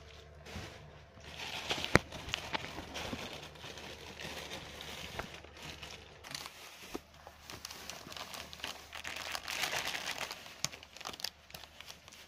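Plastic bag rustling and crinkling in irregular spells, with a sharp click about two seconds in.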